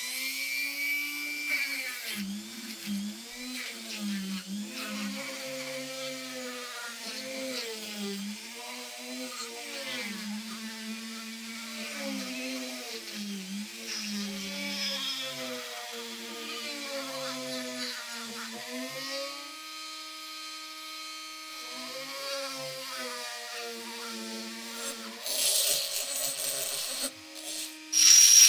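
Flex-shaft rotary tool with a small cone-shaped polishing point working a metal cap-gun part. Its whine sags in pitch and recovers again and again as the bit is pressed on and eased off, runs steady for a couple of seconds past the middle, and turns into a louder gritty grinding near the end.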